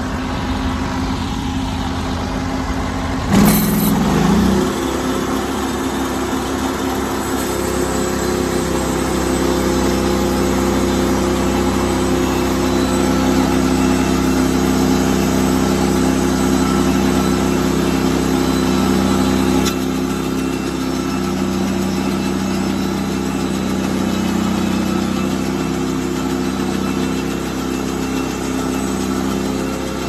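Wood-Mizer portable bandsaw sawmill running and cutting through a log, a steady mechanical hum with a sudden louder surge about three seconds in. Partway through the cut the blade strikes a nail hidden in the log, which ruins the blade so it will no longer cut straight.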